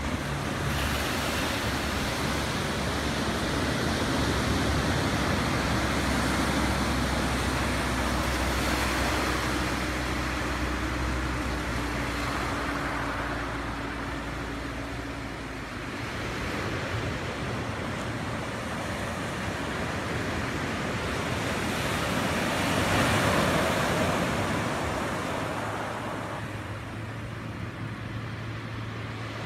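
Surf washing on a gravel beach, with the steady drone of a SuperSTOL light plane's engine and propeller under it through the first half; the drone stops suddenly a little past halfway.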